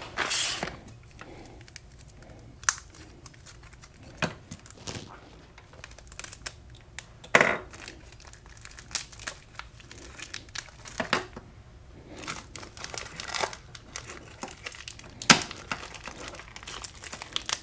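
Packaging being opened by hand: crinkling, rustling and tearing, with scattered sharp clicks.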